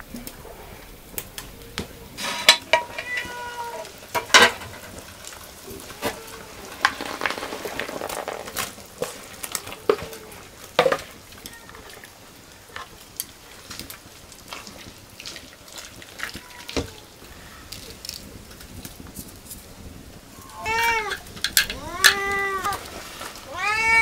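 A cat meows about three times near the end, short calls that rise and fall in pitch. Scattered sharp clicks and knocks run throughout.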